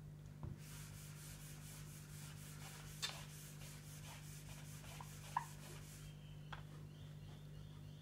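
Whiteboard eraser wiping ink off a whiteboard: faint, rhythmic back-and-forth rubbing at several strokes a second, with a couple of light knocks, stopping about six seconds in.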